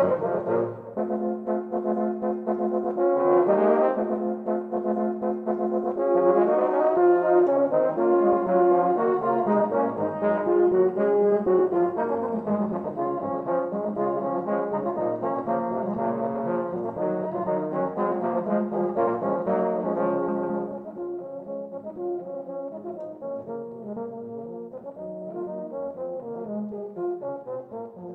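Ensemble of six euphoniums, one player multitracked, playing sustained chords and moving lines in harmony. The music drops to a softer, quieter passage about two-thirds of the way through.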